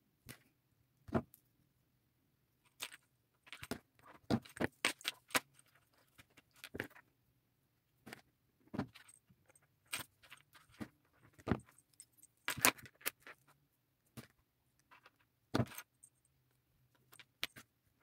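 Small metal jewellery parts clinking: pliers, charms, chains and jump rings knocking together as charms are hooked one by one onto a tassel's wire. Light, irregular clicks and jingles in short clusters with pauses between them.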